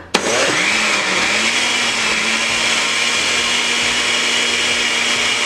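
Electric blender switched on just after the start, its motor speeding up over the first second or so and then running steadily. It is blending a liquid cheesecake batter of milk, cream cheese and eggs.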